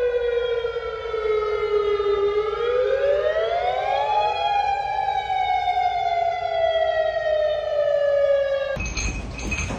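Tsunami warning siren wailing. Its pitch sinks slowly, climbs over about two seconds, then sinks slowly again before cutting off near the end.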